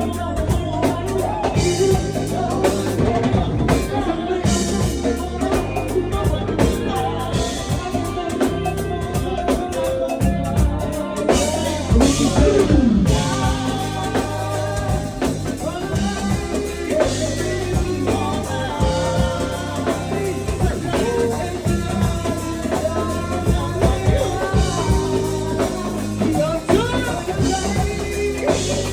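Live band playing jazzy music: a drum kit keeps the beat under a walking low bass line and a lead melody.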